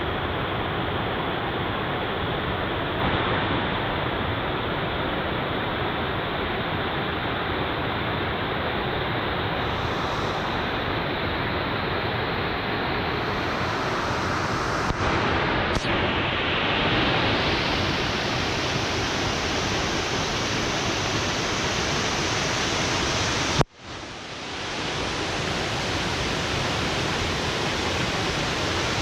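Small mountain waterfall running at low flow, a steady rush of falling water. About two-thirds of the way through, the sound cuts out for a moment and fades back in.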